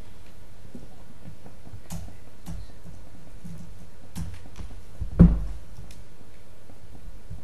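Scattered key clicks of typing on a laptop keyboard over a steady low room hum, with one louder thump about five seconds in.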